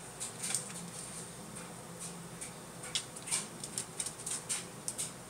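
Cats' paws and claws skittering and tapping on a tiled floor in short, irregular clicks and scrabbles.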